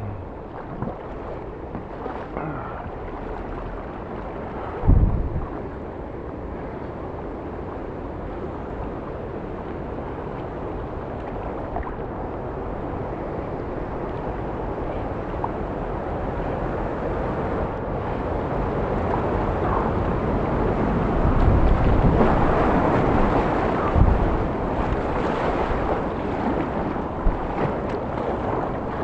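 Rushing white water below a weir, steadily growing louder as the kayak paddles into the turbulent current, with kayak paddle strokes splashing. A dull thump about five seconds in and another near the end.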